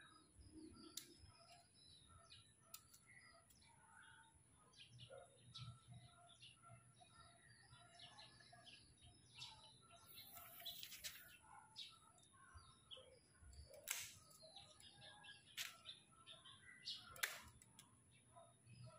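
Hand pruning shears snipping bonsai twigs: a few sharp clicks, mostly in the second half, over faint birds chirping in the background.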